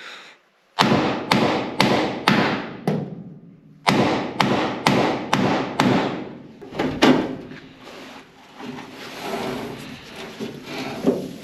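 Hammer blows driving a steel roll pin into a Renault Estafette's door hinge: two runs of five sharp, ringing strikes about two a second, a pause between them, then a single blow about seven seconds in, followed by quieter handling noise as the pin seats.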